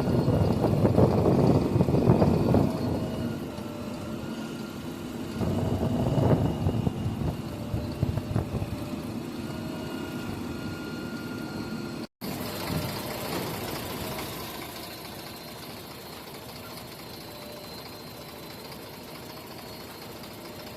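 Diesel engine of a JCB 3DX Super backhoe loader revving hard twice under load, near the start and again about six seconds in, then running at a steady lower speed, with a brief dropout about twelve seconds in.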